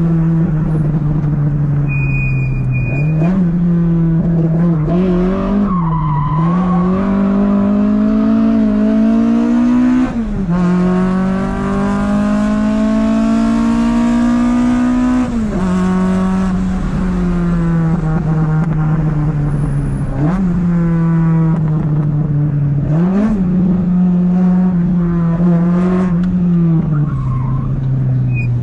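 Toyota AE86's 20-valve twin-cam four-cylinder (7A-GE) engine running hard. Its pitch climbs through two long pulls, each ending in a sudden drop like a gear change, and otherwise holds high revs with short rev blips.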